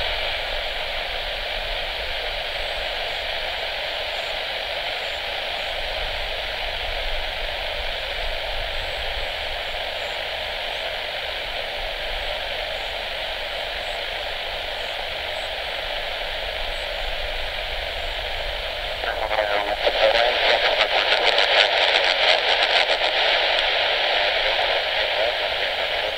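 Air traffic control radio receiver hissing with static between transmissions, with no voice. About nineteen seconds in the static grows louder and takes on a rapid flutter.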